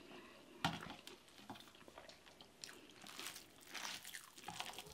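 Close mouth sounds of a person chewing a mouthful of injera and stews, with scattered small clicks; a sharp click about half a second in is the loudest.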